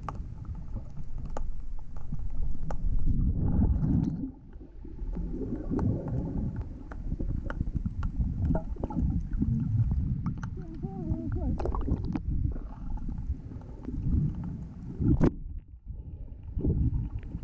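Underwater sound picked up by a submerged action camera: a low, muffled rumble of moving water with scattered faint clicks, and one sharper click about fifteen seconds in.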